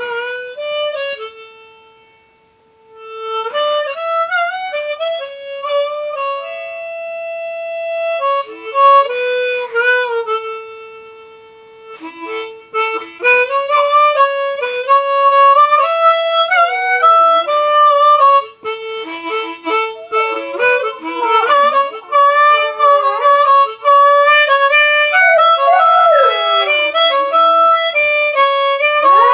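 Harmonica playing a slow tune of held single notes and chords, with a brief near-quiet gap about two seconds in. In the last several seconds sliding, wavering tones come in among the notes.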